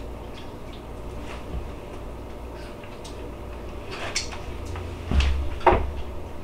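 Eating and handling noises while a chicken wing is tasted: small mouth clicks at first, then louder knocks and rustling in the last couple of seconds.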